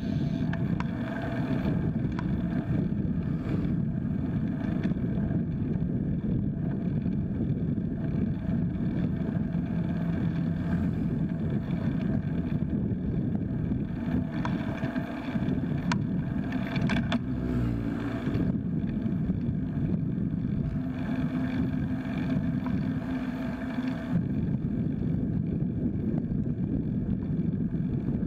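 Steady low rumble of wind buffeting the microphone, mixed with tyre and road noise from a folding bike riding on asphalt. A few sharp clicks come about two-thirds of the way through.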